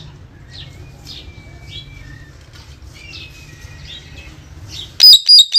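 Indian ringneck parrot giving faint chirps and two long, level whistles, then near the end three very loud, shrill screeches in quick succession.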